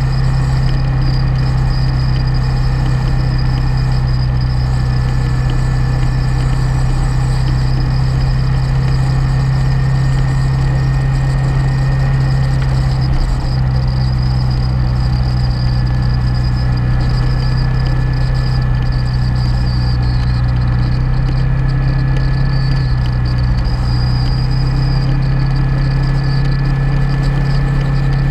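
Motorcycle engine running at a steady cruise on the open highway. It gives a loud, steady low drone that shifts slightly in pitch twice.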